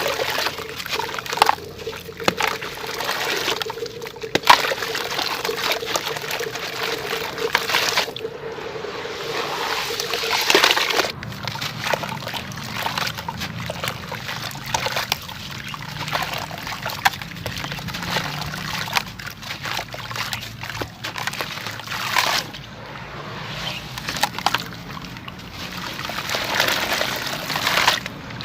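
Sand-cement chunks dipped in water and crumbling, a continuous crackling with many small clicks as wet pieces break apart, with water sloshing and trickling.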